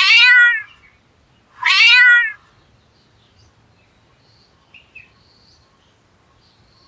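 Domestic cat meowing twice, about a second and a half apart, each meow falling in pitch.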